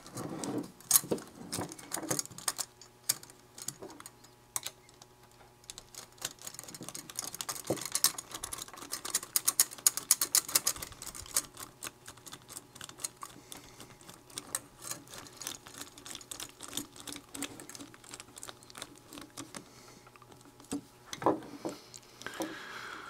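Small metal parts clicking and knocking as they are handled, with a run of rapid ticking in the middle as a nut driver turns the screw of a metal band clamp around the scope body.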